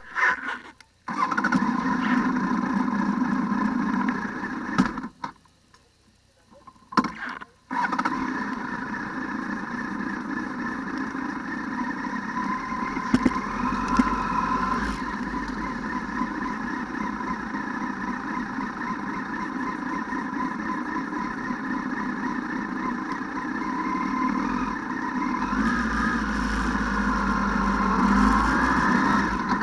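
ATV engine running, then going quiet for a couple of seconds about five seconds in. After a brief burst it starts again and runs steadily, rising in pitch a few times near the end.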